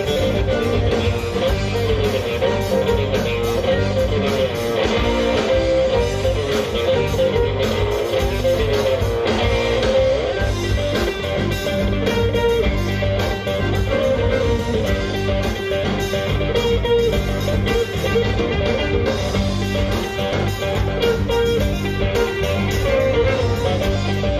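Live band playing with electric guitars, bass and drums, and a fiddle.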